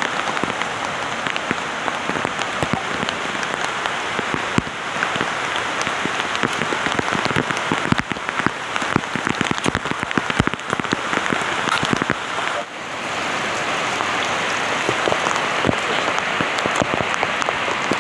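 Heavy rain falling steadily, with many individual drops striking hard close to the microphone.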